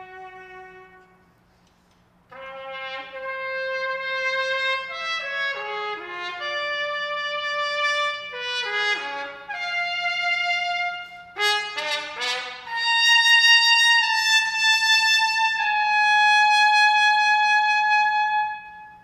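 Unaccompanied solo trumpet. A held note fades out, and after a short pause come phrases with quick downward runs and a fast upward run. It closes on two long, loud high notes that stop shortly before the end, over a faint steady low hum.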